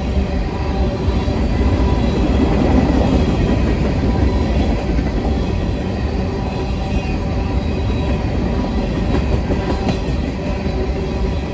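CSX freight train of covered hopper cars rolling past, its wheels on the rails making a steady rumble that swells slightly about two to three seconds in.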